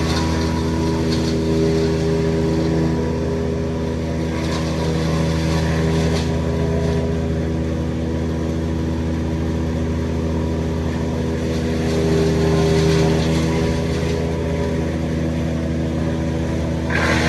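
An engine running steadily at a constant speed, with a slight swell in level about two-thirds of the way through.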